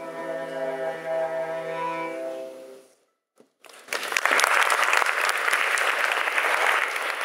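Cello holding its final notes, which die away about three seconds in; after a short pause an audience breaks into steady applause.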